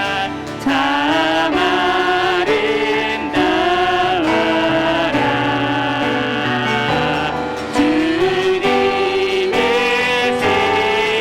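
Worship team singing a Korean praise song with piano accompaniment, with sustained, wavering sung notes.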